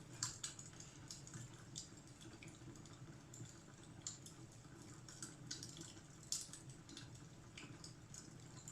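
Fireplace fire crackling: irregular small pops and snaps over a low steady rumble, with the sharpest pops about a quarter second in and just past six seconds.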